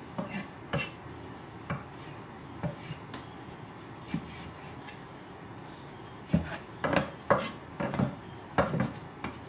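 Knife chopping spring onion on a thick round wooden chopping board: scattered single knocks at first, then a quicker run of louder chops over the last few seconds.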